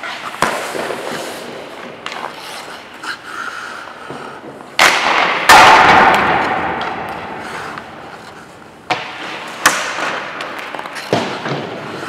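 Ice hockey shots in a rink: sharp cracks of sticks slapping pucks and pucks striking, with skates scraping the ice between. The loudest hit comes about five and a half seconds in and rings on for about two seconds; more cracks follow near the end.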